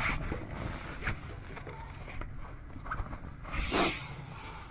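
Handling noise from the tarp-covered pickup bed: soft rustles and a few light knocks, with one louder swish late on, over a low steady rumble.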